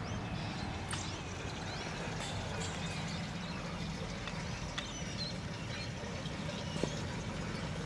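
Steady outdoor background noise with faint, scattered bird chirps and a low hum.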